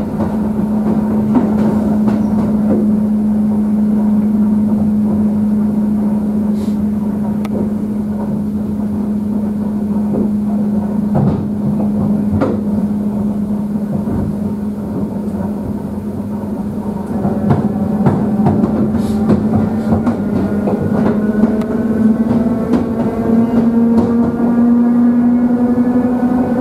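Running noise of an ET2M electric multiple unit heard from inside the car: a steady hum and rumble with scattered clicks from the wheels over rail joints. About two-thirds of the way in, a whine of several tones sets in and climbs steadily in pitch as the train picks up speed.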